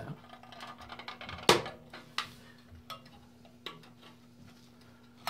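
Thin sheet-metal stovepipe tabs, cut with tin snips, being bent by hand, giving a few sharp metallic clicks and pops. The loudest comes about one and a half seconds in and the others follow at spaced intervals.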